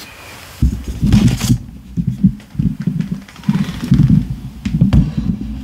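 Handling noise from the phone that is recording being picked up and moved: uneven low rubbing and bumping on the microphone from about half a second in, with a brief rustle near the start.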